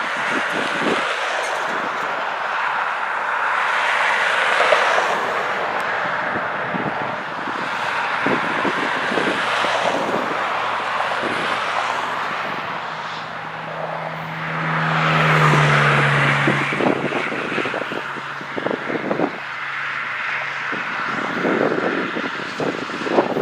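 Road vehicles passing on a two-lane road, their tyre and engine noise swelling and fading twice. A deep engine drone falls slightly in pitch as it goes by near the middle, and wind buffets the microphone near the end.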